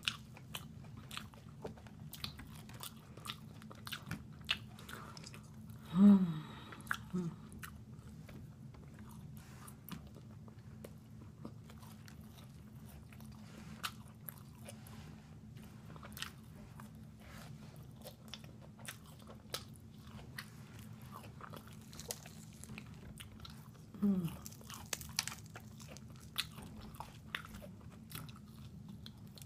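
Fried chicken being bitten and chewed close to the microphone: many sharp crunches and mouth clicks over a low steady hum. A short low vocal sound falling in pitch, the loudest thing, comes about six seconds in, with a smaller one just after, and another comes about twenty-four seconds in.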